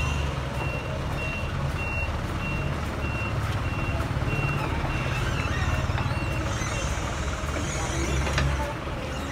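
A vehicle's reversing alarm gives a steady run of evenly spaced high beeps over a low engine hum. The beeps stop about seven seconds in, and the engine hum fades soon after.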